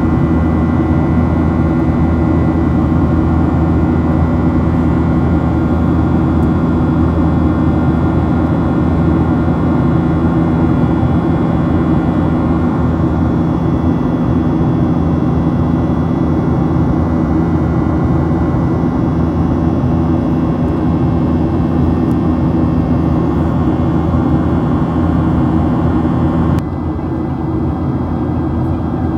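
Boeing 737-800's CFM56 jet engines running steadily, heard inside the passenger cabin as a constant drone with several fixed whining tones. The level drops abruptly near the end.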